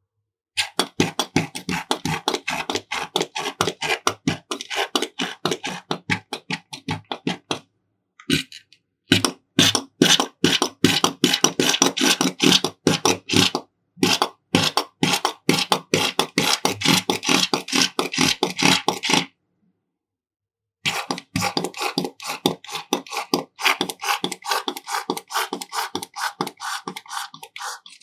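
Clear slime squished and kneaded by hand close to the microphone: a fast run of wet, sticky squelches and clicks, several a second, stopping briefly about 8 and 14 seconds in and for over a second around 20 seconds in.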